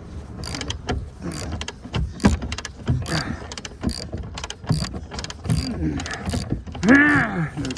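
Hand ratchet wrench clicking in repeated short strokes, roughly two clicks a second, as a seat bolt is worked loose. Near the end a man's voice gives a short strained groan.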